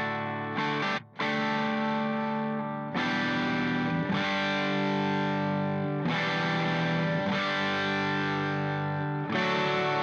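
Background music: long held electric-guitar chords with distortion and effects, moving to a new chord about every three seconds, with a brief drop-out about a second in.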